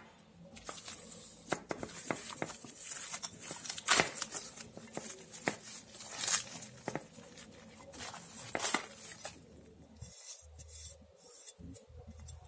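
Thin plastic wrap crinkling and rustling in irregular bursts as it is peeled and pulled off an opalware plate. The rustling dies down about ten seconds in.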